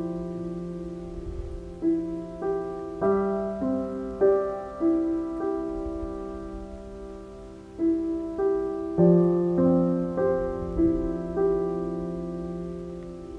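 Slow, gentle background piano music: single melody notes over held low notes, the low note changing about three seconds in and again near nine seconds.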